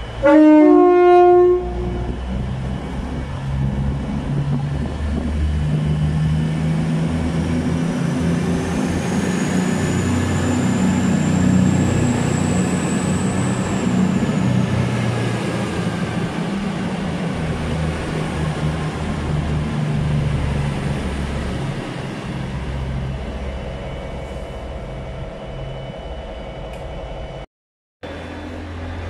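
Virgin Voyager diesel multiple unit sounding a short horn blast, then running past with its diesel engines working under load. A high whine rises and then falls away in the middle.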